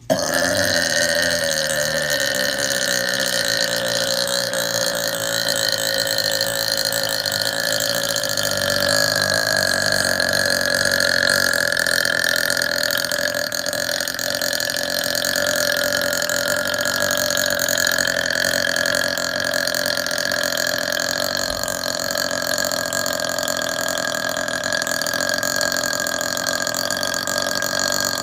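A woman's single, very long burp that starts abruptly and carries on unbroken and steady in loudness for close to half a minute.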